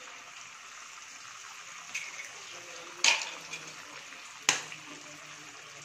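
Eggs sizzling in hot oil in an aluminium kadai, a steady even hiss. Three sharp taps come through it, about two, three and four and a half seconds in, the last two the loudest.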